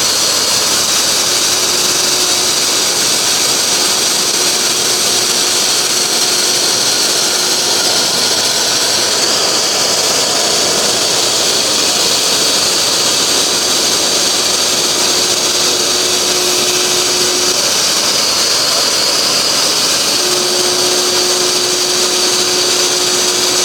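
Promax TOP4020 CNC composite panel machining centre running, its router spindle machining aluminium composite panel: a loud, steady high-pitched whine over noise, with a fainter mid hum that drops out twice for a few seconds.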